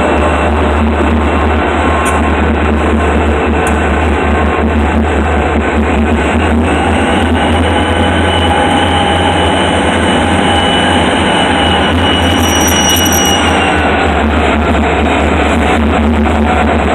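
Loud rock music, with passing diesel locomotives heard under it.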